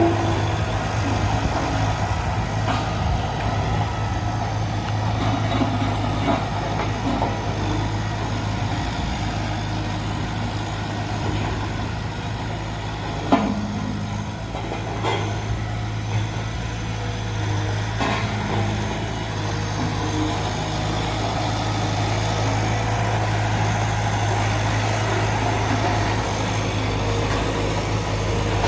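A truck engine running steadily with a low hum, with a few short knocks in the middle.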